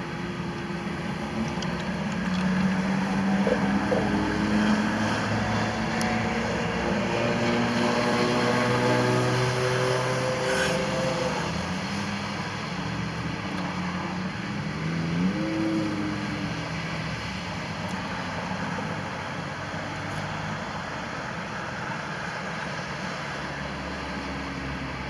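Motor vehicles passing on a nearby road over a steady rumble of traffic noise, louder for several seconds early on, with one engine rising in pitch as it accelerates about 15 seconds in.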